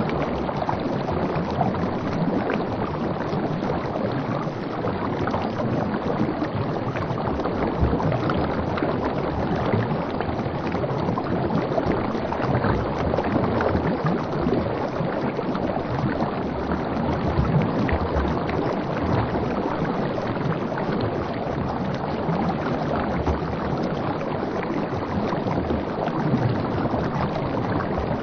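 Steady rushing and lapping of river water around a coracle moving close to the surface.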